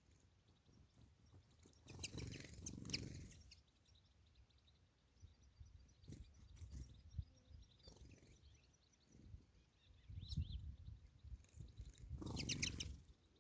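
European goldfinches twittering in quick, thin, high chirps that come and go, with louder bursts about two seconds in and near the end, mixed with a few bursts of low rumble.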